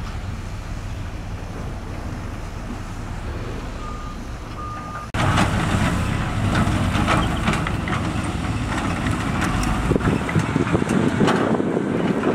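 Heavy diesel construction machinery running, with two short reversing beeps about four seconds in. About five seconds in the sound cuts abruptly to louder engine noise with scattered clattering knocks.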